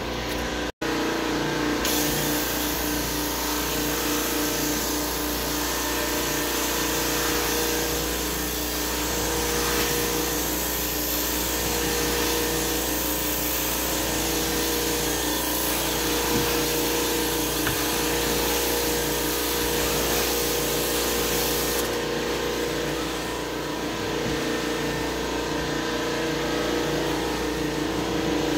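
Carpet steam-cleaning (hot-water extraction) machine running with a steady hum while its floor wand is drawn across the carpet, sucking up water. A loud hiss rides over it, starting about two seconds in and stopping about three quarters of the way through. The sound cuts out for an instant about a second in.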